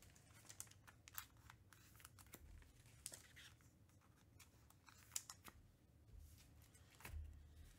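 Faint handling of trading cards and plastic card sleeves: scattered light clicks and rustles, with one sharper click about five seconds in.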